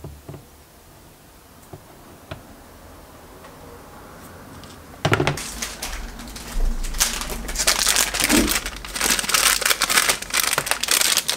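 A few faint clicks, then about five seconds in a small plastic packet holding a servo starts crinkling loudly as it is handled and opened.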